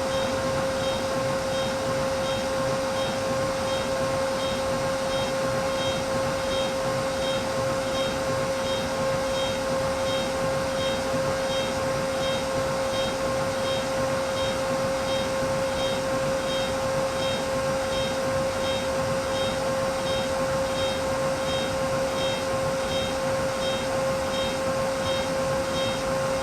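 CNC machine running steadily: a constant high whine from its motors, with a faint regular pulsing higher up at about two pulses a second.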